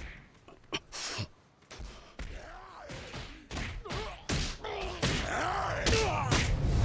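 Men shouting and grunting in a brawl, many voices yelling over one another and growing steadily louder. A few sharp knocks come in the first second or so.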